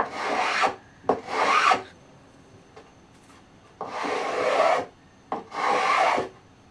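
Small, sharp hand plane taking shavings off the corner of a wooden frame piece: four quick strokes, each under a second, with a pause of about two seconds in the middle.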